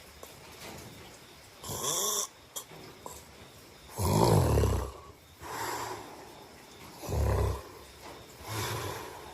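A sleeping person snoring, with a snore or breath every couple of seconds. The deepest and loudest snores come about four and seven seconds in, with softer, breathier ones between them.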